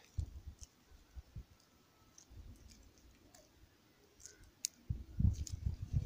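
Faint scattered clicks and ticks from grafting tape being pulled and knotted around an apple tree's trunk by hand. Low rumbling bumps grow louder near the end as he moves and the recording phone is handled.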